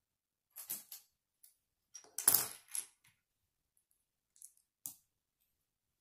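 Small plastic Lego bricks handled and pressed together: scattered sharp clicks and light rattling. The loudest cluster comes about two seconds in, with a couple of faint ticks later.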